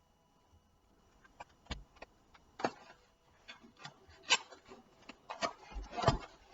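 Irregular light knocks, clicks and rubbing from hands handling the Snapmaker 2.0 power module and its packaging, with a few sharper knocks among quieter rustles.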